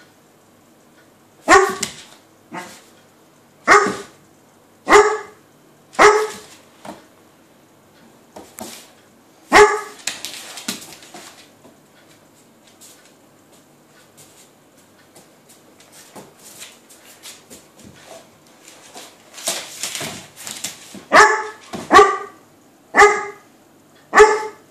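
Weimaraner barking in single sharp barks at a cat, play barks from a dog that wants to play. About ten barks come in all, spaced a second or more apart, with a quieter stretch in the middle before a quicker run near the end.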